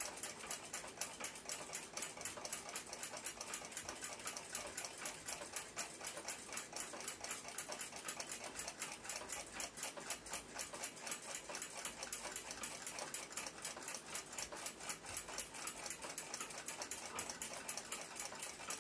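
Faint, rapid, even ticking of a Chelsea ship's bell clock's movement running, several ticks a second.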